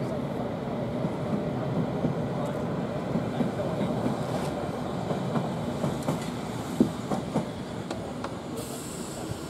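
London Underground S Stock train running on the track: a steady rumble, with a few sharp wheel clacks on the rails about seven seconds in.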